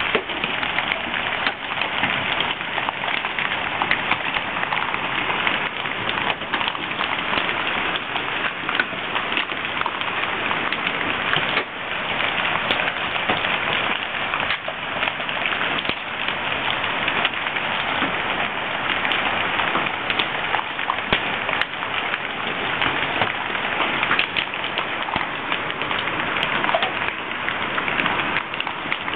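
Hailstorm, mostly nickel- to quarter-size stones with some golf-ball size, coming down hard: a dense, steady clatter of countless sharp ticks as the hail hits the ground and street.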